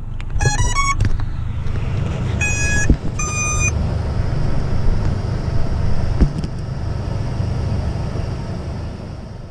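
FPV quadcopter's brushless motor ESCs chiming their power-up tones: a quick rising run of beeps, then two longer beeps about a second apart, the signal that they have picked up the throttle signal. A steady low rumble runs underneath, with a couple of sharp clicks.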